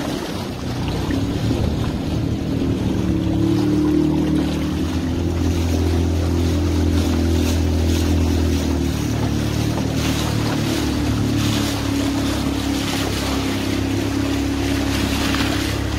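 Outboard motor pushing a narrow wooden boat upriver, running steadily, with a slight change in its note about nine seconds in. River water rushes along the hull over the riffles.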